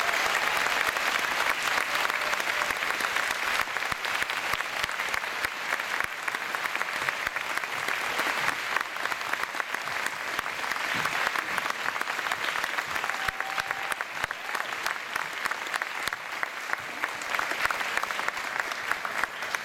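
A large audience applauding: dense, steady clapping that eases a little midway and swells again near the end.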